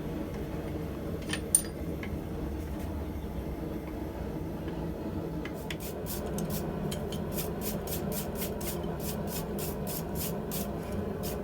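Steel being worked by hand in rhythmic scraping strokes, about four a second, starting about halfway through, with a single sharp metallic clink early on. A steady low hum runs underneath.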